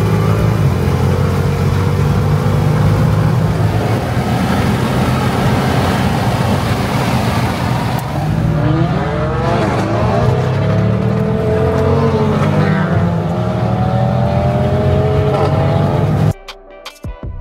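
Car engine running hard under acceleration, its pitch rising and falling several times in the second half, with wind and road noise over it. The sound cuts off abruptly near the end.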